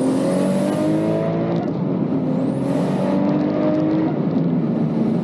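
Toyota 2JZ-GTE straight-six of a 1000 hp Mk4 Supra accelerating hard through the gears. Its pitch climbs, falls back at two upshifts about a second and a half and three seconds in, then climbs again. A thin high whistle rises with the revs and cuts off just before each shift.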